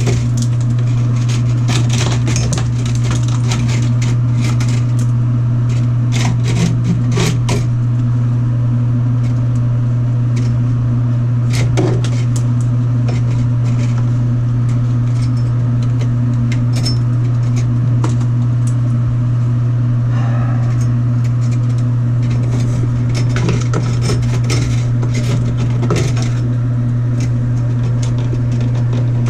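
A steady low hum under scattered metallic clinks and knocks: tools and metal pipe fittings being handled during shower valve plumbing work.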